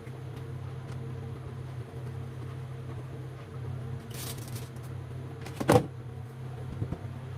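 A steady low mechanical hum, with a short scraping noise about four seconds in and one sharp knock a little before six seconds, like a utensil or pan knocking in a kitchen.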